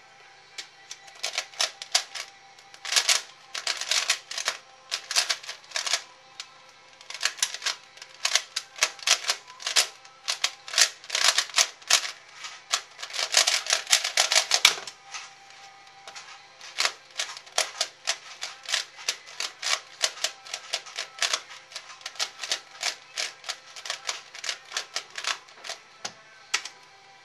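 Rapid plastic clicking and clacking of a C4U 3x3x3 speedcube being turned at speed-solving pace, in dense runs of fast turns with short pauses, stopping about fifteen seconds in. After a brief gap the turning resumes as lighter, more even clicking while the cube is scrambled for the next solve.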